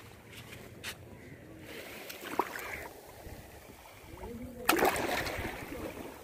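Shallow sea water washing over wet sand at the shoreline, with a louder rush of water about three-quarters of the way through.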